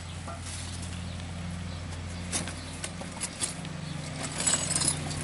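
Plastic bags rustling and small metal parts clicking as motor-bike kit pieces are handled and sorted into a cardboard box, with a louder crinkling burst about four and a half seconds in. Underneath, a steady low hum from a lawn mower engine running some way off.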